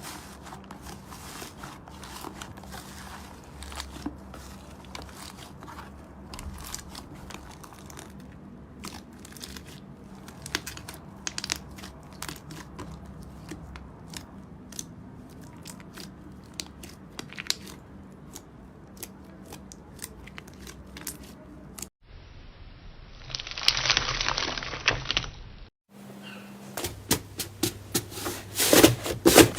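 Slime being squeezed and worked by hand, giving many small clicks and crackles. After a brief drop-out a little past two-thirds in, a louder stretch of crackling follows, and near the end the clicking and crunching grows loud and dense.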